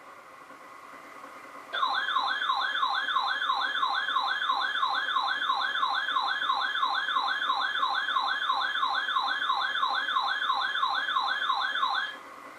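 Electronic siren in a rapid yelp, sweeping up and down about three times a second. It starts about two seconds in and cuts off near the end, after about ten seconds.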